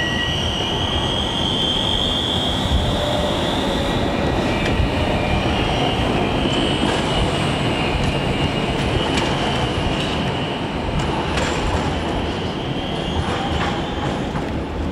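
Articulated low-floor tram rounding a tight curve, its wheels squealing in a high steady tone for most of the time over the rumble of the running gear, with a few short clicks about two-thirds of the way in.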